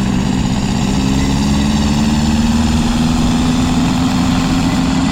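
Motorcycle engine sound effect running steadily, its pitch creeping slowly upward.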